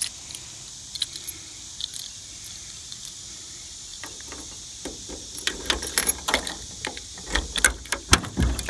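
A ring of keys jangling as a key is fitted and worked in a car's trunk lock: a few light clicks at first, then a quick run of jingles, clicks and knocks over the last four seconds or so.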